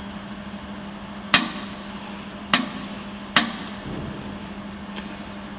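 Stand-type jewelry laser welding machine firing three laser pulses, each a sharp snap, about a second apart, over a steady low hum.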